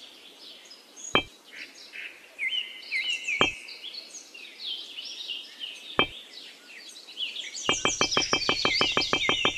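Birds chirping, with three sharp clicks about two and a half seconds apart as miniature clay bricks are set down one by one. Near the end a fast, even synthesizer pulse starts.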